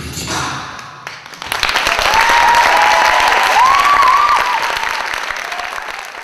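A theatre audience applauding and cheering, with a few whoops rising and falling over the clapping. It swells in about a second and a half in as the beatboxed rhythm stops, then slowly fades near the end.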